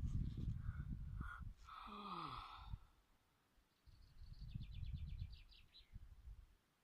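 Wind gusting on the microphone in low rumbles, with a short falling call about two seconds in and a bird's rapid trill of high ticking notes a little after the middle.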